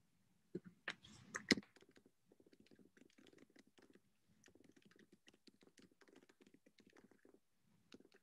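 Soft computer-keyboard typing: a few louder clicks and a knock in the first second and a half, then a quick, faint run of key clicks lasting several seconds.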